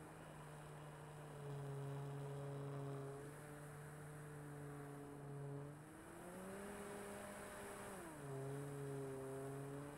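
Electric motor and propeller of a 4-cell RC Corsair F4U model plane running as a steady hum; the pitch rises about 6 s in as the throttle is opened and falls back shortly after 8 s.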